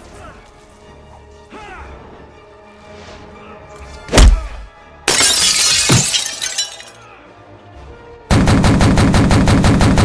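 Dubbed-in comedy sound effects over quiet background music. There is a heavy boom about four seconds in and a noisy crash a second later. Near the end comes a loud, rapid rattle of automatic gunfire.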